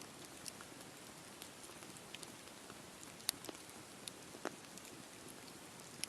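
Wood fire burning: a steady soft hiss with scattered sharp crackles and pops, the loudest about three seconds in.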